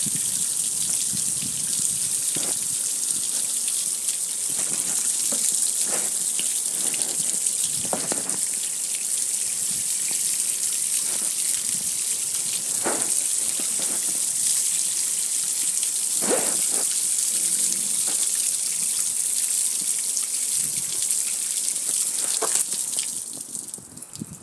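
Water from a hose spraying onto a gas grill: a steady hiss of spray, with water splashing and running off the metal lid and control panel. The spray cuts off near the end.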